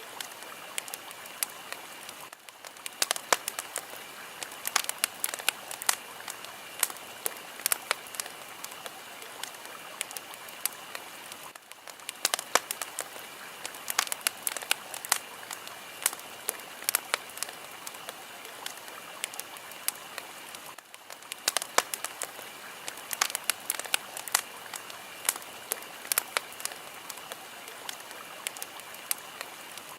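Fire crackling: a steady hiss with frequent sharp pops and snaps, dipping briefly about every nine seconds.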